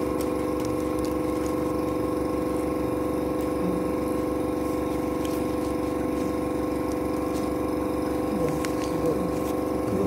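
Steady electric hum of a small motor running continuously at one constant pitch, with light clicks of paper being handled over it.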